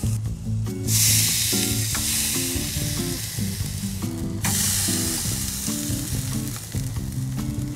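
Silver carp fillets sizzling on a hot wire grill rack, loud and hissing from about a second in, with a brief break near the middle before it resumes. Background music with a stepping melody plays underneath.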